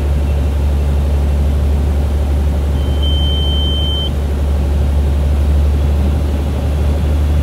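Cabin noise of a Beechcraft A36 Bonanza gliding with its engine throttled back to idle for a simulated engine failure: a steady low drone of the idling engine, propeller and airflow. About three seconds in, a single high, steady beep sounds for just over a second.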